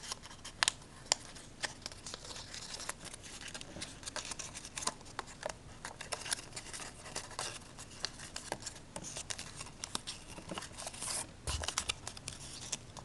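A small piece of paper being folded and creased by hand: irregular crinkling and crackling clicks, with a soft low thump near the end.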